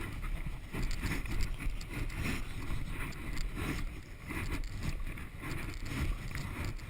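Wind rumbling on the camera microphone with irregular scuffing and rustling; the motorcycle's engine is switched off.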